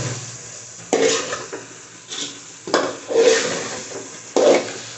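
A metal spoon scraping and stirring fried okra through thick masala in a metal pot, in several strokes that each start sharply and fade, with a faint sizzle of the frying masala between them.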